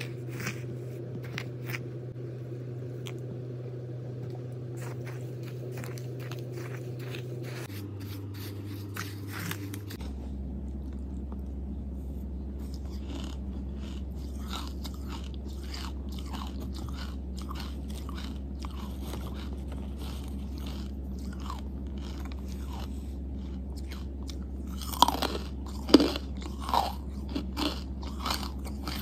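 Close-miked eating of charcoal: crunching and chewing with many small clicks and crackles, over a steady low hum, and a few louder crunches near the end.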